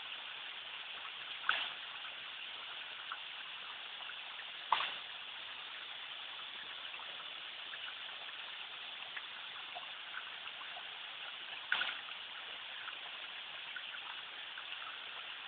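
Waterfall rushing steadily, with three brief sharp knocks or splashes standing out, about one and a half, five and twelve seconds in.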